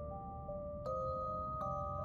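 Background music: slow, sustained notes held over a low rumble, with a new set of notes struck about a second in and again near the end.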